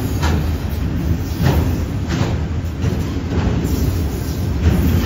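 A freight train of autorack cars rolling past close by: a steady low rumble of steel wheels on the rails, with sharp clacks every half second to a second as wheels cross rail joints.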